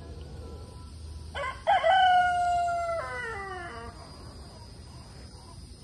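A rooster crowing once, starting about a second and a half in: a long held call that drops in pitch at its end.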